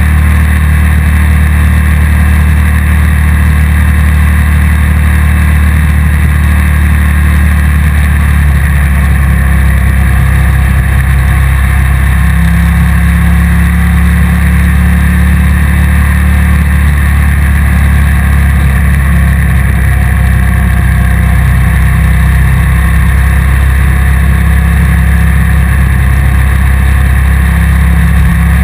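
Onboard sound of a motorcycle riding along at a steady speed: a loud, constant engine and road rumble.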